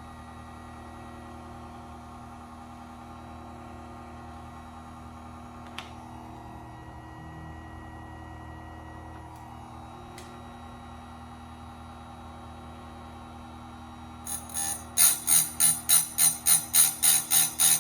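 Steady hum of a small electric motor, which fits the cheap chainsaw chain grinder running. About fourteen seconds in, a loud, bright, jingling rhythmic beat starts at about three strokes a second.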